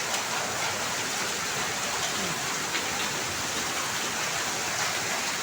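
Hailstorm: heavy rain mixed with large hailstones pouring down, a steady dense hiss.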